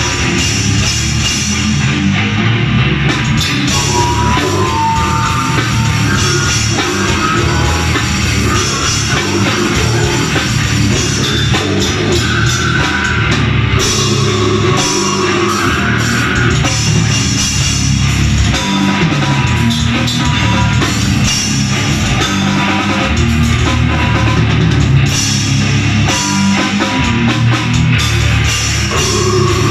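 Heavy metal band playing live: distorted electric guitars, bass and a pounding drum kit in a loud, dense, unbroken wall of sound.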